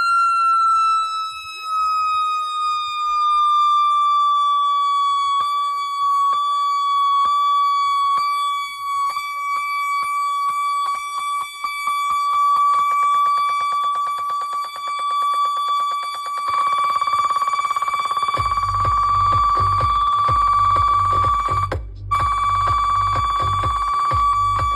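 A siren-style tone played loud through a large DJ sound system: its pitch slides slowly down and then holds steady. After about 18 seconds a pulsing deep bass beat comes in underneath, with a brief cut-out a few seconds later.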